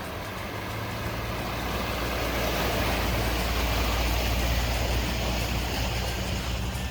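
Jeep engine running under load as it drives slowly along a muddy trail. It gets louder through the middle and then eases off.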